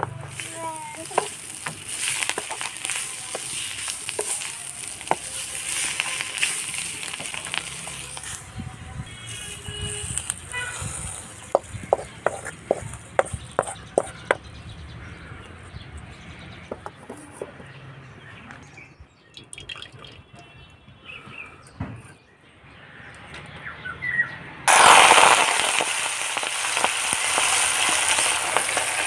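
Oil sizzling in a steel kadai as a wooden spatula stirs and scrapes through frying pickle. A run of sharp knocks follows as the spatula taps against the pan. Near the end a sudden loud sizzle breaks out as wet red spinach leaves go into the hot pan.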